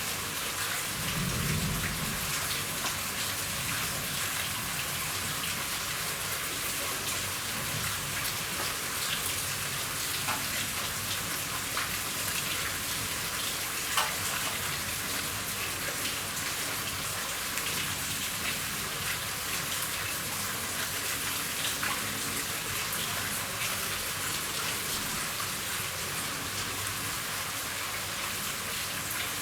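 Steady rain pattering on a roof, with many fine drop ticks and one sharper tap about halfway through. A short low rumble of distant thunder comes about a second in.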